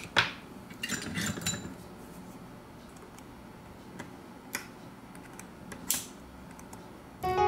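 Small metallic clicks and clinks of steel tweezers and a screwdriver handling tiny phone screws: a cluster with a light ring about a second in, then a few single clicks, the sharpest near six seconds. Piano music comes in at the very end.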